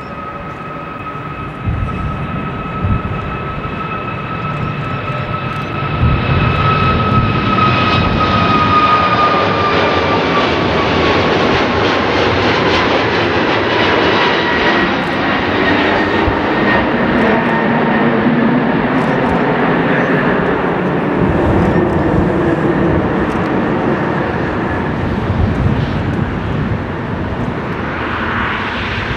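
Four Rolls-Royce Trent 500 turbofans of an Airbus A340-500 at takeoff power, through the takeoff roll and climb-out. A high fan whine slowly falls in pitch over a broad jet roar that gets louder about six seconds in.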